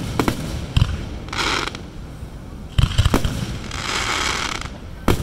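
Aerial fireworks shells bursting with sharp bangs, several in quick succession about three seconds in, and two spells of crackling sizzle from the bursting stars, around a second and a half and around four seconds in.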